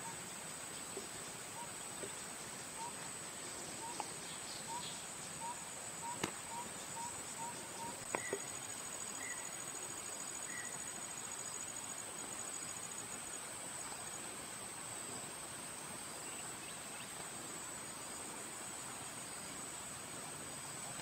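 Tropical forest ambience: insects buzzing steadily at a high pitch, with a run of short repeated calls about two a second for the first eight seconds, a few higher chirps after that, and some faint knocks.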